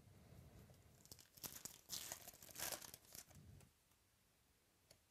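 A foil trading-card pack crinkling as it is handled and torn open by hand, loudest around the middle.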